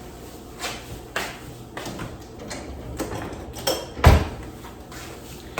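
Kitchen handling noises as seasonings and containers are set out on the counter: a series of light knocks and rustles, with one louder thud about four seconds in.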